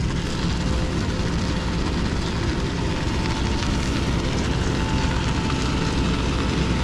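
Rollback tow truck's winch and engine running steadily as the winch pulls a van up the tilted bed: a low drone with a thin steady whine over it.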